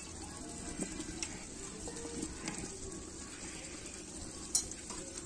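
Chicken curry simmering in a large metal pot over a wood fire, a steady bubbling hiss, with a few light splashes as potato pieces are tipped in. A single sharp click near the end.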